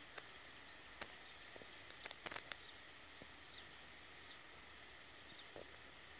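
Faint rural dawn ambience: a steady insect drone with scattered short bird chirps. Several faint sharp clicks fall in a cluster about two seconds in.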